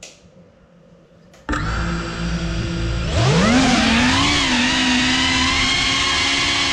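GEPRC CineLog 35 cinewhoop's motors and ducted propellers: they start spinning at idle suddenly about one and a half seconds in, then throttle up with a rising whine about three seconds in, as the drone takes off, and hold a steady whine with a slightly wavering pitch.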